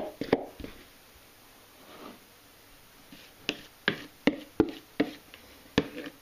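Sharp knocks of a plastic mixing bowl and wooden spoon against a stainless-steel worktop as crumbly dough is tipped out and scraped free: two near the start, then a run of about seven, two or three a second, from about three and a half seconds in.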